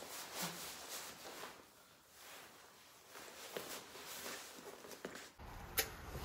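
Nylon puffer jacket rustling as it is zipped up and the collar settled. Near the end a steady low outdoor background noise comes in, with one sharp click.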